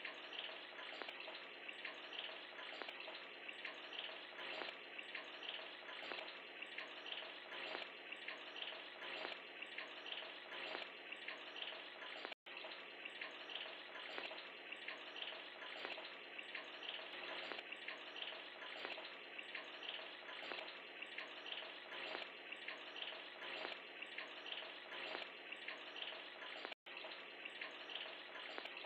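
Aquarium water running and bubbling steadily, a continuous trickle full of small rapid splashes. It cuts out for an instant twice.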